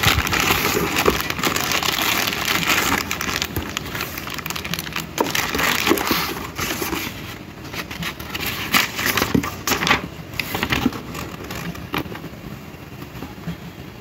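Plastic packaging bag crinkling and cardboard box rustling during unpacking, with many small clicks and taps. The handling is busiest in the first half and thins out toward the end as a sheet of paper is handled.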